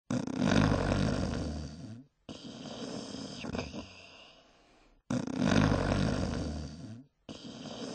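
Cartoon snoring sound effect: a loud, low snore followed by a softer, longer breath out, heard twice the same way.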